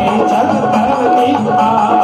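Loud Hindu devotional bhajan music for Shyam, with singing, a held keyboard note and a percussion beat.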